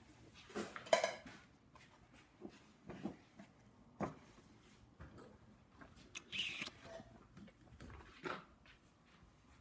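Scattered handling noises at an etching press: a sheet of printing paper rustling and felt press blankets being lifted and folded back, with light knocks and clicks. The sharpest sound comes about a second in, and a short hissing rustle follows past the middle.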